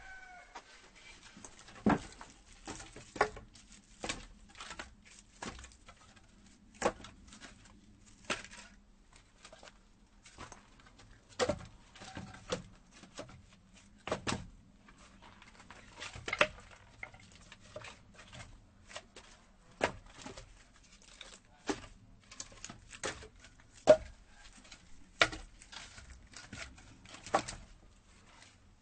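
Axe chopping firewood: sharp, irregular strikes on wood, the loudest coming every second or two with lighter knocks in between. A rooster's crow trails off at the very start.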